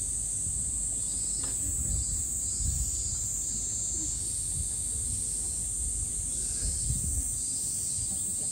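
Steady, high-pitched drone of a summer cicada chorus, with a low rumble underneath.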